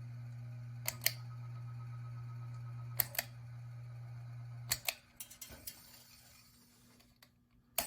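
Restored 52" Harbor Breeze Crosswinds ceiling fan motor running with a low steady hum while its pull-chain switch clicks in three quick pairs; after the third pair the hum stops as the fan is switched off. A few fainter clicks and one more sharp click follow near the end.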